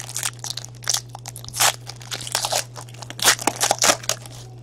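Shiny plastic wrapper of a trading card pack crinkling and crackling as it is torn open and pulled off the cards by hand, in a quick irregular run of crackles.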